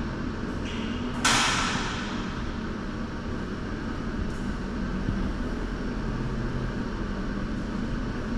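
Steady machinery hum of an indoor pool room's air handling. A single sharp knock about a second in rings out over about a second in the echoing room.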